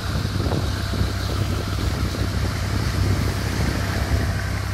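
Motorboat engine running steadily at cruising speed, a constant low drone, under the rush of its churning wake and wind.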